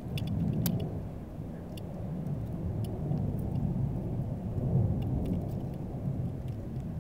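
Wind rumbling on the camera microphone, swelling and fading, with a few faint clicks.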